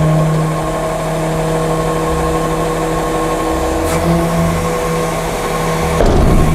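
Rear-loading garbage truck's hydraulics lowering the tailgate, a steady machine whine of several held tones over the running truck engine, with a louder rumble near the end.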